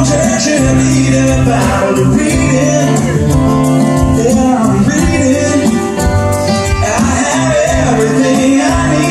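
Live acoustic country music: two acoustic guitars strumming while men sing.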